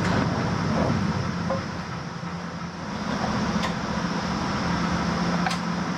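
A steady low mechanical hum with a couple of light clicks in the second half.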